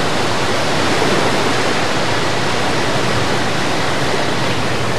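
Flood-swollen river rushing past, a steady, even noise of fast, churning water.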